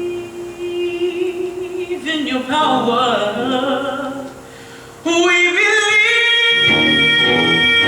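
Singing: long held notes with a short dip in level about four seconds in, then a loud sustained note, with accompaniment coming in near the end.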